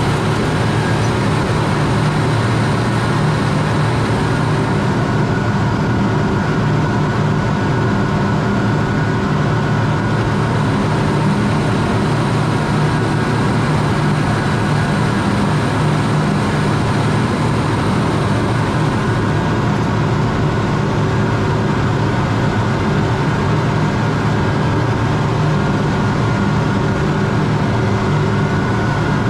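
A large farm machine's engine running steadily, a deep even drone with no change in speed. A faint high whine sounds twice and drops out about two-thirds of the way through.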